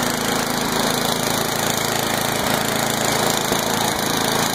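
Craftsman 9 hp, 28-inch two-stage snowblower's gasoline engine running steadily with the choke off and the throttle set.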